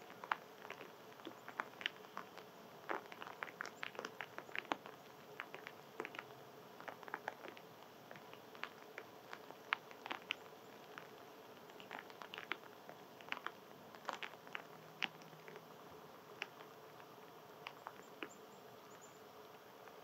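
Gray squirrel cracking and chewing seeds and nuts: irregular sharp clicks and crunches, thicker in the first few seconds and sparser later, over a faint steady hum.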